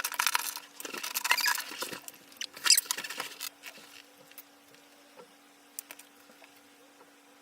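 Rustling and crinkling of small plastic items being handled close to the microphone, dense for about three and a half seconds, then only a few faint clicks and taps.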